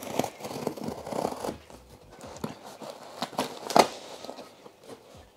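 Scissor blade slitting the packing tape along a cardboard box: irregular scraping and scratching against the cardboard, with a sharper crackle of tape about four seconds in.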